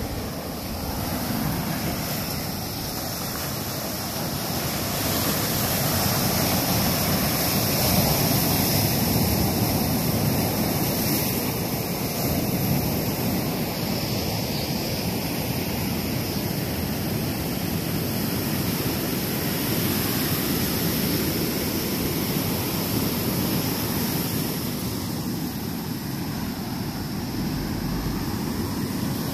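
Ocean surf breaking and washing up a sandy beach: a steady rushing noise that grows louder a few seconds in, with wind rumbling on the microphone.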